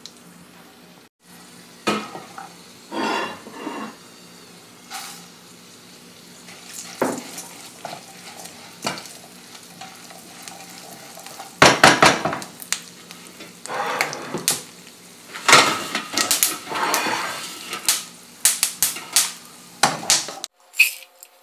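Cashews and melon seeds sautéing in a little ghee in a non-stick pan, a quiet sizzle under bursts of a wooden spatula stirring and scraping them against the pan. The stirring comes in irregular bouts, loudest about halfway through and again near the end.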